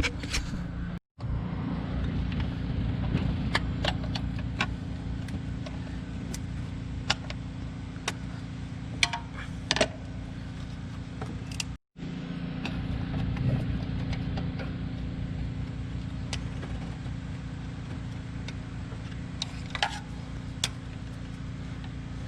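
Scattered light metal clinks and rattles from hands working on a truck engine, taking off the air cleaner cover, over a steady low hum. The sound cuts out completely twice for a moment.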